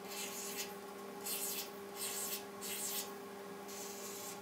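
Felt-tip highlighter rubbing across paper in about five short strokes as it circles and underlines words.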